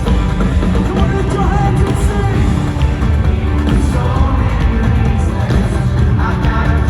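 Loud music with a singing voice over a heavy bass and drum backing.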